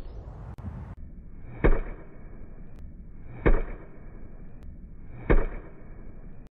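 Golf club striking a ball off a driving-range mat three times, each a sharp crack, about 1.8 s apart, over steady background noise. A rising swoosh ends about half a second in.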